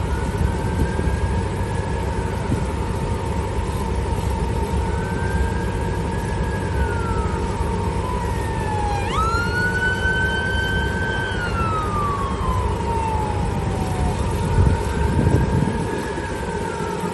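Emergency vehicle sirens wailing, rising and falling slowly, with a louder, closer siren about nine seconds in that sweeps up sharply and then slides down. A steady high tone and a heavy low rumble run underneath.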